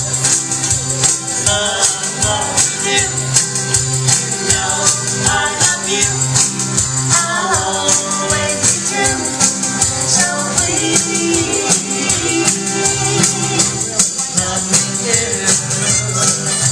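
Live band playing an upbeat pop song on acoustic guitar and keyboard, through loudspeakers, with a shaker keeping a quick, even rhythm and a voice singing in places.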